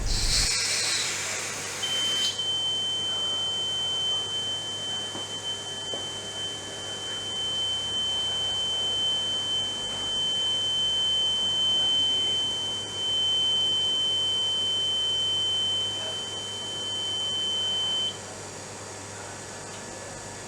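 A short hiss of aerosol smoke-detector test spray, then a steady high-pitched alarm tone from a Graviner Mk 6 oil mist detector, held for about sixteen seconds and cutting off suddenly. The alarm signals that the repaired detector head has sensed the simulated oil mist.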